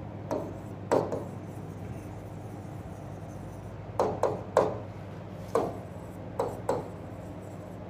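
Pen tip tapping and stroking on the glass screen of an interactive whiteboard while handwriting: about eight short, sharp taps at uneven intervals, most of them bunched in the middle.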